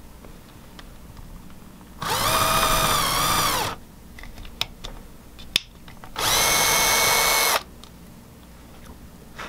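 Power drill driving a countersink drill bit into a wooden block, in two runs of a few seconds each: the first dips in pitch midway as the bit loads up in the wood, the second holds steady. A few light clicks fall between the runs.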